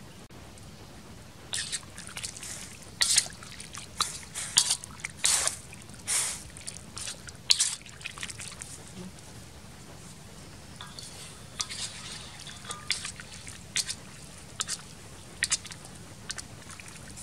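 A ladle stirring and sloshing frogs in water in a steel wok, giving irregular splashes and sloshes that are busiest in the first half and come again more lightly later.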